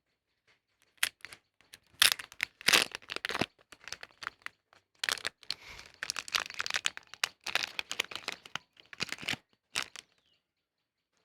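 Packaging being rummaged through by hand: irregular crinkling and rustling with small clicks, loudest about two to three seconds in.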